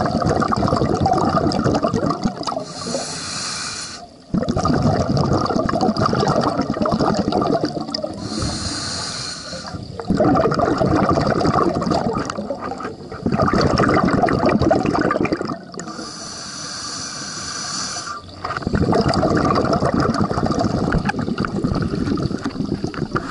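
Scuba diver breathing through a regulator underwater. Long bubbly exhalations alternate with shorter hissing inhalations, three breaths in all.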